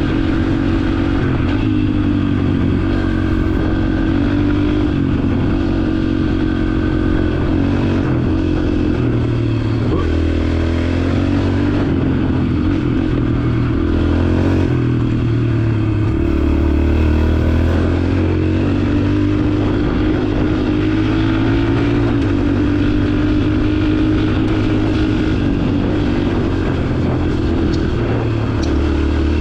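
Yamaha TT-R125 trail bike's single-cylinder four-stroke engine running under way. The engine note rises and falls as the throttle opens and closes, and drops lower a few times in the middle.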